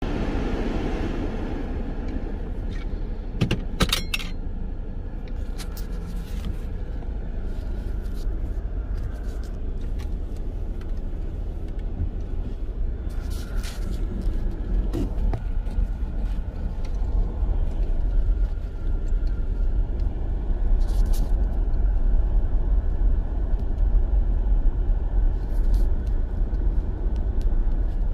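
Car driving, with a steady low road and engine rumble and a few light knocks and rattles. The rumble grows slightly louder in the second half.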